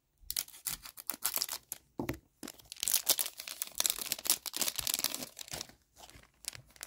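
A trading-card pack wrapper being cut with scissors and pulled open by hand. It crinkles and crackles in a quick run of sharp snaps, busiest in the middle and thinning out near the end.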